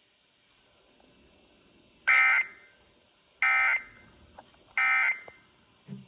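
Emergency Alert System end-of-message signal: three short bursts of SAME data tones, each about half a second long and about 1.4 s apart, marking the end of the broadcast alert.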